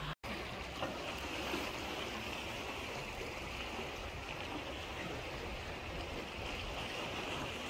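Steady wash of seawater against a breakwater, a continuous even noise with no distinct strokes.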